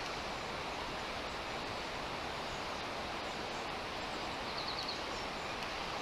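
Steady rush of river water flowing over a shallow riffle, an even hiss with no distinct events. A brief faint chirp comes about four and a half seconds in.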